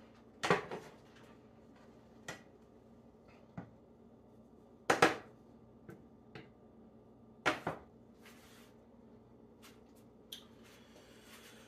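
Kitchen clatter of a wooden spatula against a metal skillet of cooked sausage crumbles: about six separate sharp knocks a second or two apart, the loudest about five seconds in.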